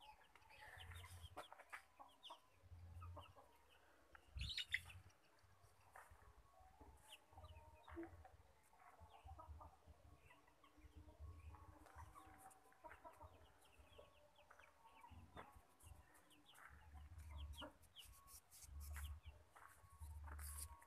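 Faint chicken clucking with scattered short bird chirps, over intermittent low rumbles and light clicks from the handheld phone being moved.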